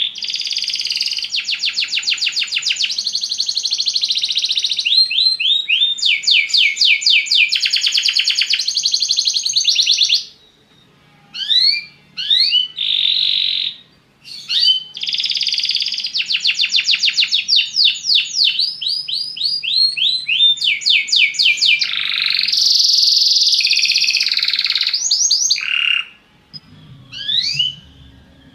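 Belgian canary singing a long rolling song of fast trills and quick rising notes, pausing briefly about ten seconds in and again near the end.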